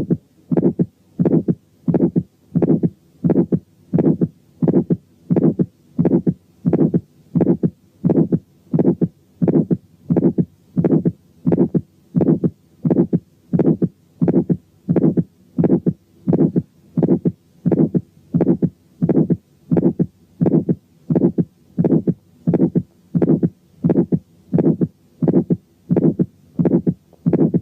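Recorded heart sounds of aortic stenosis heard at the first aortic area through a stethoscope diaphragm: each beat carries an ejection click and an ejection systolic murmur. The beats repeat in a steady, regular rhythm, about one and a half a second.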